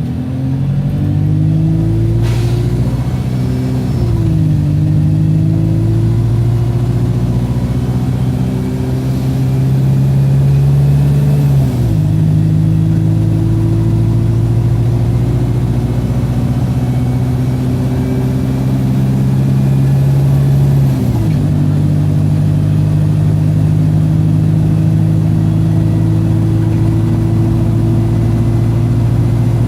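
Wright StreetLite single-deck bus engine heard from inside the bus, pulling uphill in limp mode on reduced power. The engine note climbs slowly and drops sharply at each of three automatic gear changes, about four, twelve and twenty-one seconds in. There is a single short knock about two seconds in.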